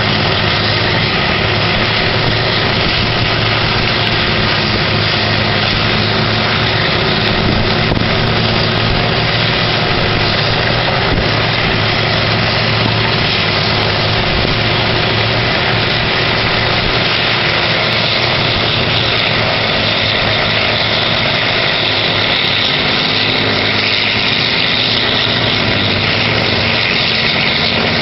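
Horizontal wood grinder and excavator running together, a loud steady engine drone with a dense hiss over it and no breaks.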